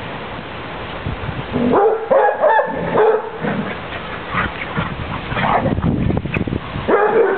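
Basset hounds barking repeatedly as they chase and wrestle, starting about two seconds in.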